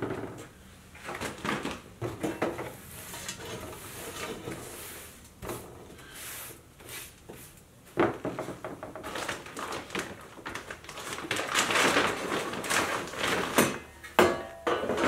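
A bench brush sweeping crumbled old beeswax comb debris across a work tabletop in a run of scratchy swishes, with a couple of sharp knocks near the end.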